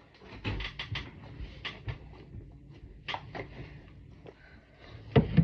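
A dumpling-shaped foam squishy toy being squeezed close to the microphone, making irregular soft squishing and crackling handling noises. There is a louder knock near the end.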